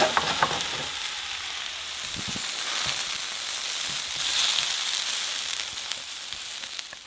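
Food sizzling in a hot frying pan, a steady crackling hiss that grows louder about four seconds in.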